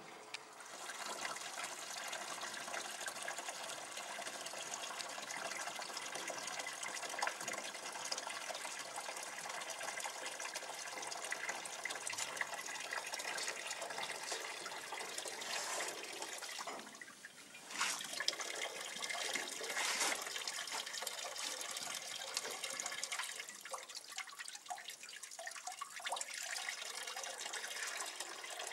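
Wine running in a steady splashing stream from an oak barrel into a vessel during gravity racking, drawing the clear wine off its lees. The flow drops away briefly about two-thirds of the way through, then resumes with a couple of knocks.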